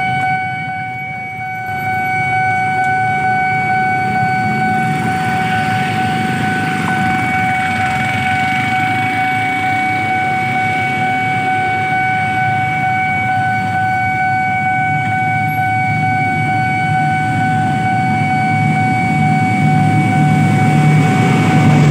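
Railway level-crossing warning alarm sounding a steady high electronic tone, over the low hum of motorbikes and cars waiting at the lowered barrier. Near the end a diesel locomotive's engine grows louder as the freight train approaches the crossing.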